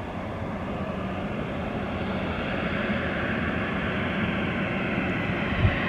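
Jet airliner's engines running, a steady rushing noise that grows slowly louder.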